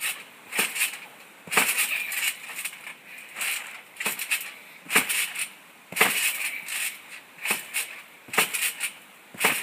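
Garden trampoline in use: the mat and springs sounding with each bounce, a short sharp hit about once a second, in an uneven rhythm.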